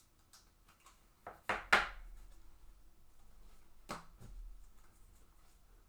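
Trading cards and foil pack wrappers being handled on a table: a few short rustles and taps, the loudest about a second and a half in and another near four seconds.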